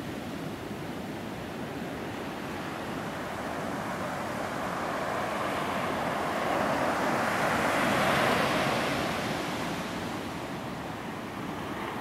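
Water washing over beach sand in a steady rush. It swells to its loudest about two-thirds of the way through, then eases off.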